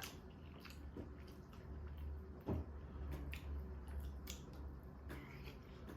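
Faint wet eating sounds from momo dumplings being chewed, with scattered small clicks and smacks over a low steady hum.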